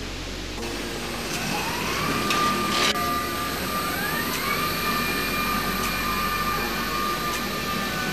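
Electric drive motors of an Alimak rack-and-pinion construction hoist running up to speed. The whine climbs in pitch and levels off, then a second, higher whine climbs about four seconds in and holds steady, with a sharp metallic knock about three seconds in.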